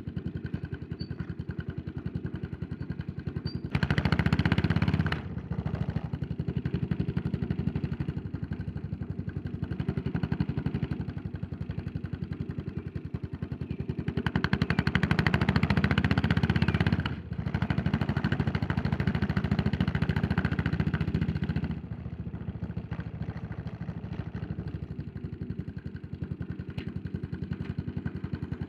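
Yamaha SR400's air-cooled single-cylinder four-stroke engine running under way, its exhaust beats coming fast and even. The throttle is opened briefly about four seconds in, then held open for a longer pull from about fourteen to twenty-two seconds, broken by a short dip near seventeen seconds, before the engine settles back to a lighter cruise.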